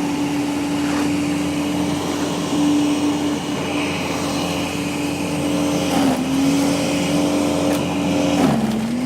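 An engine running at a steady high pitch, its pitch dipping briefly and climbing back about six seconds in and again near the end.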